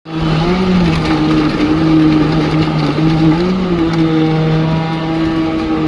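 Diesel engine of concrete-pumping equipment running steadily with a low hum, its pitch briefly rising twice.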